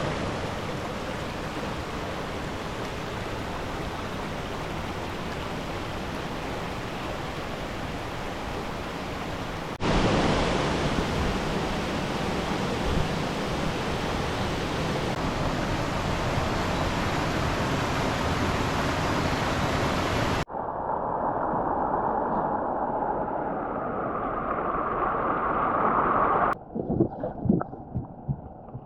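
Mountain stream water rushing steadily over rocks, heard in several cuts that change abruptly in loudness and tone. A run of irregular low thumps comes near the end.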